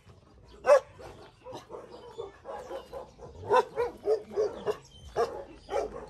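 A dog barking: one loud bark about a second in, then a run of shorter, quieter barks in the second half.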